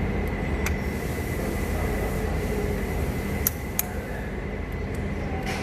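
Steady low background rumble with a faint constant high whine, and a few sharp clicks, two of them close together about three and a half seconds in.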